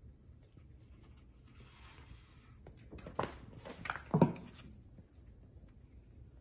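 Two Siamese cats scuffling on the floor: a soft rustle, then a quick cluster of bumps and scrabbling about three to four seconds in, the loudest a single thump just past four seconds.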